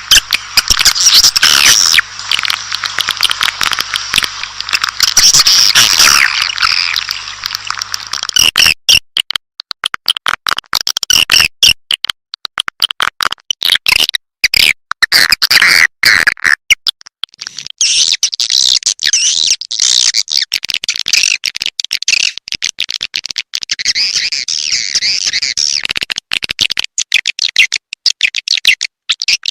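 Swiftlet call recording of the kind played to lure swiftlets into a nest house: dense, rapid, high chirping and twittering mixed with quick clicks. A low hum lies under the first third and then stops.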